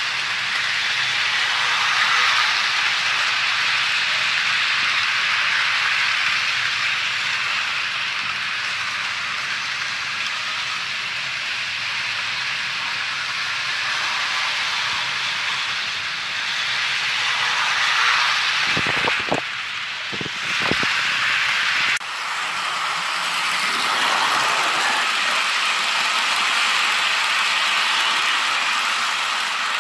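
HO scale model freight trains rolling along sectional track, the cars' wheels making a steady rushing rattle. A few sharp clicks come a little under two-thirds of the way through.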